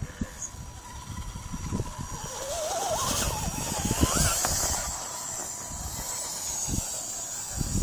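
An RC rock crawler's drive motor and gears whine as it climbs over rock. The pitch rises and falls with the throttle, loudest about halfway through, with a low rumble underneath.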